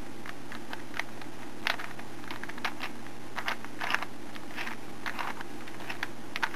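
3x3 Rubik's cube being turned by hand, its plastic layers clicking and clacking in quick, irregular turns as the final-step algorithm is run through, over a steady low hum.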